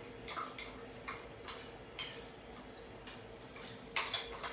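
Steel spoon scraping and tapping inside a small steel mesh strainer as ground paan (betel-leaf) paste is pressed through it: short strokes about twice a second, the one near the end the loudest.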